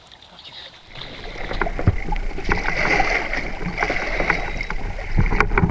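A hooked small shark thrashing at the surface beside a boat's hull, with water splashing and knocking, over a low steady rumble; the sound swells about a second in.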